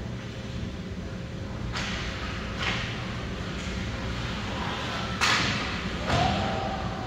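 Hockey play in a rink: a handful of sharp cracks and knocks from sticks, puck and boards, each trailing off in an echo, the loudest about five seconds in, over a steady low hum.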